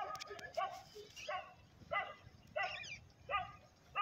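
A dog barking over and over, one short bark about every two-thirds of a second, with a few sharp clicks in the first half-second.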